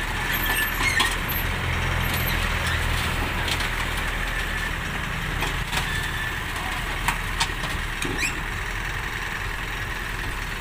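Mini excavator's diesel engine running steadily while it digs, with several short sharp knocks and clanks of the bucket and arm working against soil and stones.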